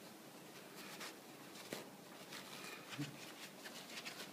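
Faint scratchy rustling and small ticks as a Pomeranian puppy tugs and mouths a sheet of toilet paper on carpet, with a short, louder low sound about three seconds in.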